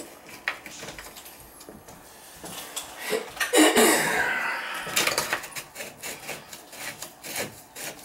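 Rubbing, scraping and light clicks of gloved hands and a screwdriver working on a tub/shower valve stem and its trim, with a louder, longer rub about three and a half seconds in.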